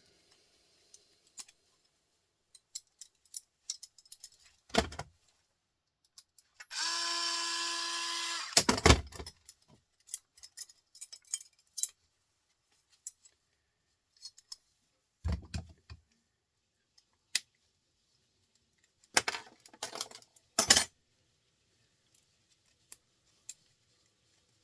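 Cordless drill-driver whirring steadily for about two seconds while removing screws, among scattered clicks, knocks and clatter of small metal and plastic printer parts being handled and dropped.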